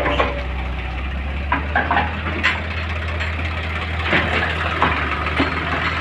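Heavy diesel engine running steadily at low revs, with scattered short knocks and clatter over the hum.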